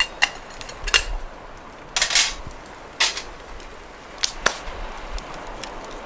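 Small aluminium kettle handled and set down on a metal grill grate over a charcoal fire: a series of light metal clinks and clatters, with two short scraping rattles about two and three seconds in.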